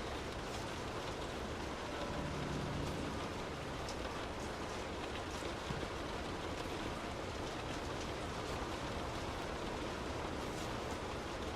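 Rain falling on a car's roof and windows, heard from inside the cabin: a steady, even patter with individual drops ticking sharply here and there.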